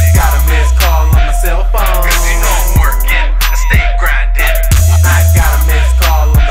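Hip hop music with heavy bass, drums and ticking hi-hats in a repeating beat.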